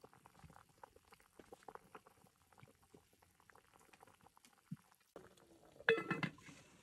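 Soup simmering in a pot over a wood fire, with light bubbling and small clicks of a spoon stirring it. Near the end a heavy cast-iron lid scrapes and is set down on the pot with a loud metallic clank that rings briefly.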